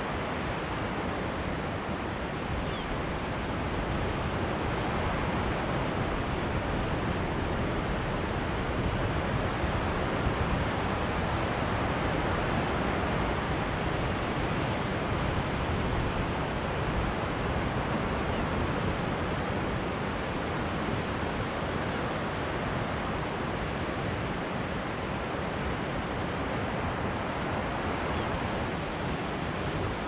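Ocean surf breaking and washing around rocks, mixed with wind: a steady rush of noise.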